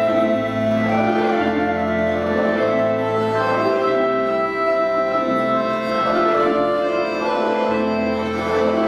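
Orchestra of Russian folk instruments playing slow, sustained, organ-like chords over a bass line that moves to a new note every few seconds.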